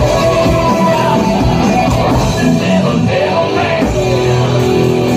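Heavy metal music: distorted electric guitar and drums playing together loudly.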